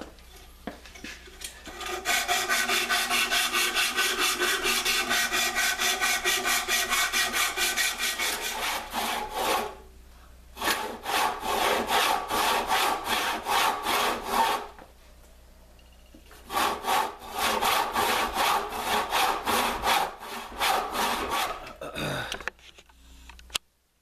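Handsaw sawing lengthwise down into the top of an oak axe handle, cutting the kerf for the wedge. The fast, even strokes come in three runs, broken by short pauses a little under halfway through and about two-thirds of the way through.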